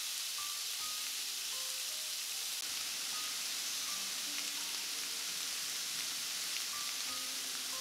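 Skewered chicken cubes sizzling steadily on a hot grill pan over a high flame, with soft background music of short scattered notes.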